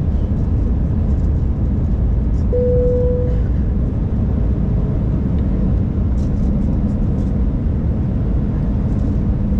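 Steady cabin noise inside an Airbus A320 descending on approach, the rumble of the engines and airflow heard from a window seat beside the wing engine. About two and a half seconds in, a short steady tone sounds for under a second.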